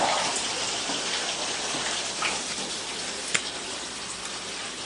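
Steady hiss of noise with a few faint clicks, the sharpest about three and a half seconds in.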